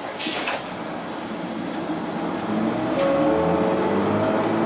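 Interior ride sound of a Mitsubishi Fuso Aero Midi MK (KK-MK23HM) route bus: its diesel engine note rises and grows louder from about halfway through as the bus accelerates. A brief hiss just after the start.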